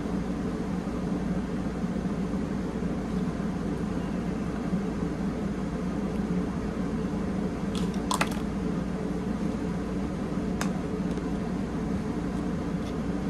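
Play sand being pressed and raked with hands and small plastic rakes, soft squishing over a steady low background hum, with a couple of light plastic clicks about eight and ten and a half seconds in.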